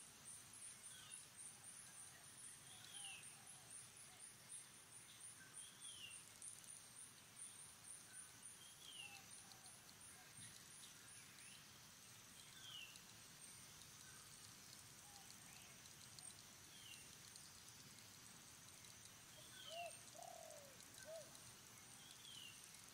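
Faint forest ambience: a bird repeats a short falling call about every three seconds over a high, rapid pulsing trill that stops about halfway through. A few lower calls come near the end.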